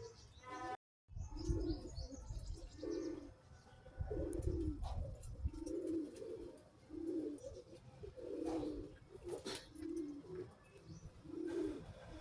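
Domestic pigeons cooing, short low coos repeating about once a second, over a low rumble during the first few seconds.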